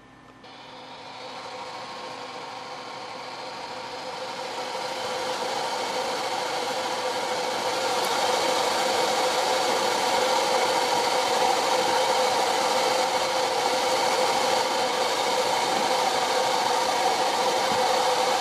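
Electric blower fan switched on, spinning up over about eight seconds and then running steadily: a rush of air with a steady whine, driving a high flow of air through a gas meter.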